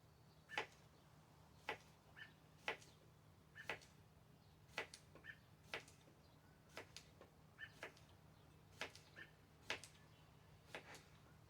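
Kitchen knife slicing through cucumbers onto a cutting board: a sharp knock about once a second, each with a fainter click or two between.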